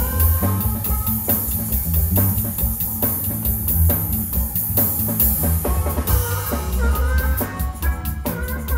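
Chicago-style electric blues band playing: drum kit and bass guitar to the fore in a steady beat, with short melodic lines from guitar or harmonica above.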